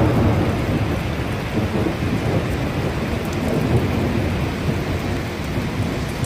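Muddy flash-flood water rushing down a rocky cliff face: a steady, loud rushing noise with a heavy low rumble underneath.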